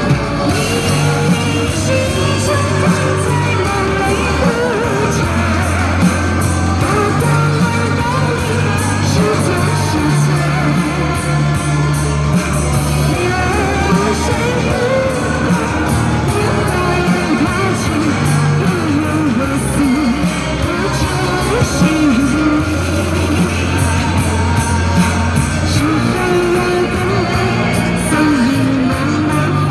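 A pop song sung by a solo voice over a band backing with a sustained bass line.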